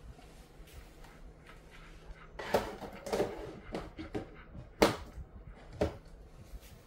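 Dog licking and smacking its lips after a snack: a few sharp, irregular wet clicks, the loudest about two and a half and five seconds in.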